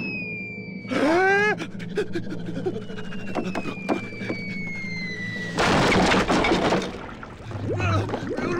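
Cartoon sound effects over a steady low background: a long falling whistle, like something dropping through the air, ends in a loud crash about five and a half seconds in. A short character cry comes about a second in, and excited character gibberish near the end.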